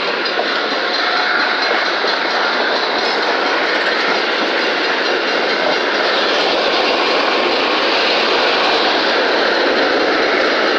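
Freight cars of a manifest train rolling past close by: steady, loud noise of steel wheels on rail with a clickety-clack over the rail joints.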